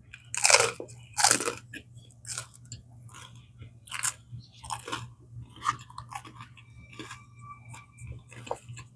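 Two crunchy bites into crusty buttered sourdough bread in the first second and a half, then close-up chewing with a run of small clicking mouth sounds.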